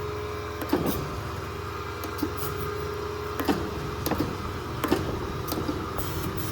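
Kent KGS-63AHD hydraulic surface grinder running with a steady hum from its spindle motor and hydraulic pump. Short knocks recur every half second to second or so as the hydraulic table travels back and forth.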